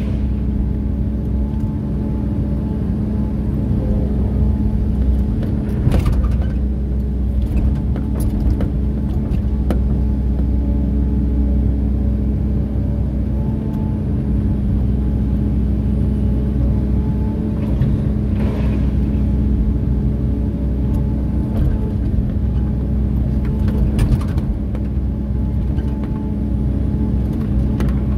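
A LiuGong 915 excavator's diesel engine running steadily under working load, with a few brief knocks and scrapes as the bucket dumps soil and rock and digs into the ground.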